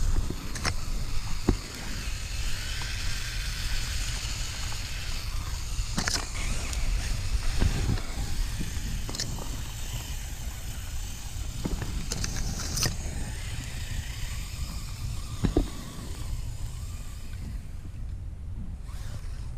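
Axial Capra RC rock crawler driving over gravel and through dry brush: rustling and crunching with about a dozen short, sharp snaps and clicks, over a steady low rumble.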